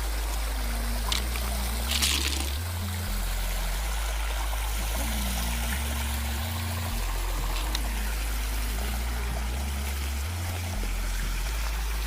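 Water trickling and running steadily, with a brief louder splash-like burst about two seconds in, over background music with a repeating bass line.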